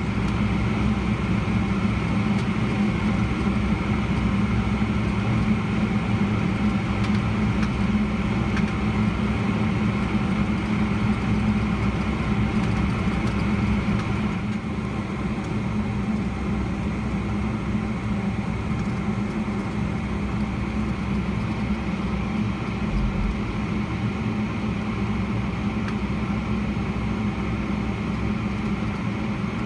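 Cabin noise of a Boeing 777-300ER taxiing, heard from a window seat: its GE90 engines run at low taxi power as a steady drone with a few held tones, easing slightly about halfway through.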